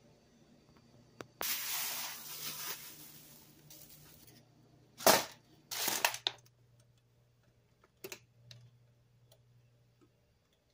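Plastic film wrap being torn open and pulled off a tray of ground beef: a crinkling, rustling stretch about a second and a half in, then two short, sharp crackles around five and six seconds, the first the loudest. A few light clicks and taps follow.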